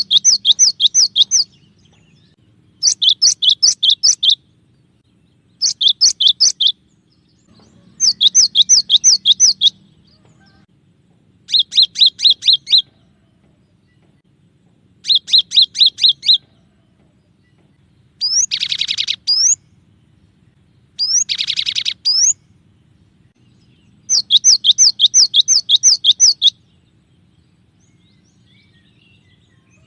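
Cinereous tit (gelatik batu) singing loud, clear phrases of rapid repeated high two-note calls. The phrases come in bursts of one to two seconds with short pauses between them. Two phrases near the middle are a different, buzzier call with a rising note.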